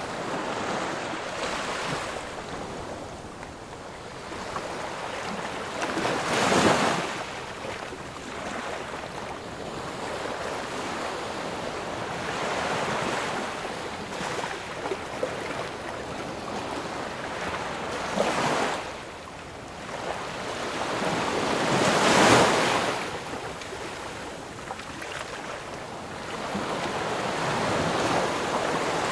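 Ocean waves washing on a shore, a steady rush with louder breaking surges about six seconds in, again near 18 seconds and most strongly around 22 seconds.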